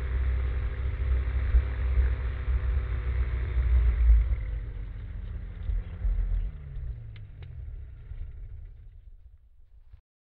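Rotax 503 two-cylinder two-stroke engine of a Spectrum Beaver ultralight running on the ground under heavy low rumble. About halfway through, its pitch falls steadily over a few seconds as the engine slows and fades, and the sound cuts off near the end.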